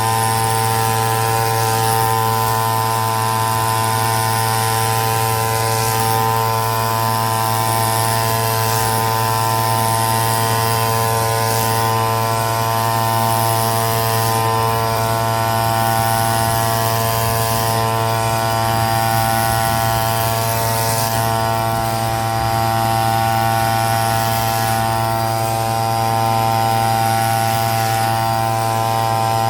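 Petrol brush cutter engine running steadily at high speed while cutting grass, holding an even pitch.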